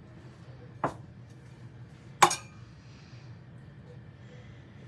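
Two sharp clinks of kitchenware, a small one about a second in and a louder one just after two seconds that rings briefly, over a low steady hum.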